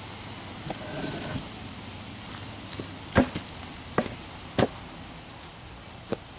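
A few sharp knocks, four of them spread over about three seconds, over a faint steady hiss.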